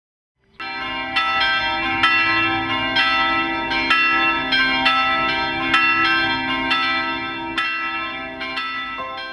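Church bells pealing, several bells struck one after another at about three strikes a second, their ringing overlapping. The peal starts about half a second in and fades away near the end.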